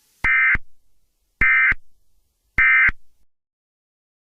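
Emergency Alert System end-of-message (EOM) data bursts: three short bursts of buzzing digital tones, about a second apart, signalling that the alert message is over.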